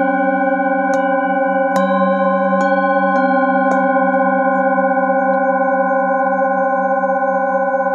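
Several metal singing bowls struck in turn with a mallet, four strikes in the first four seconds. Their overlapping tones ring on, with a slow wavering beat in the lowest note.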